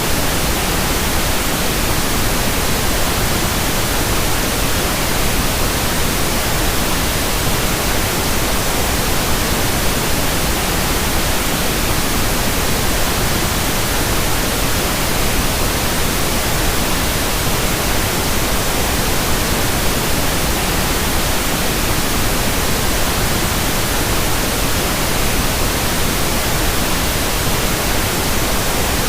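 Steady synthetic masking noise for tinnitus: an even, unbroken hiss spread from low to high pitch, with no tones, rhythm or changes.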